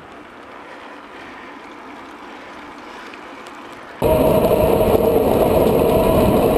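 A quiet stretch of faint rolling noise. About four seconds in, loud, steady wind rush on the action camera's microphone starts abruptly, with tyre noise from a mountain bike on a fast paved descent.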